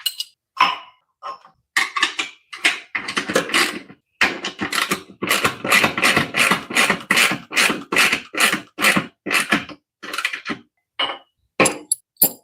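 A 13 mm wrench tightening bolts on a steering-column H bracket: a quick, irregular run of metal clicks and scrapes, densest through the middle.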